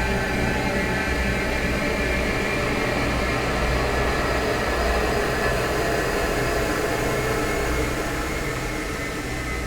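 Dark ambient horror drone: a steady, dense, rumbling wash of noise with faint held tones, beginning to fade out near the end.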